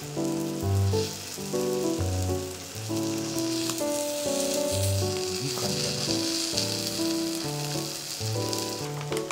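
Cheese, whitebait and egg sizzling in a hot sandwich pan over a gas flame, a steady high hiss that grows stronger in the second half, with background music playing over it.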